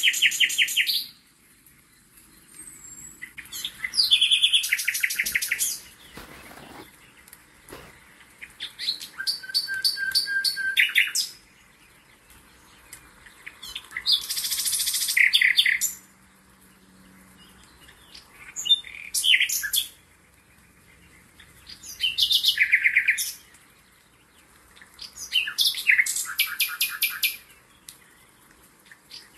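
A songbird singing: bright, rapid trilled phrases about one to two seconds long, repeated roughly every four seconds with short pauses between.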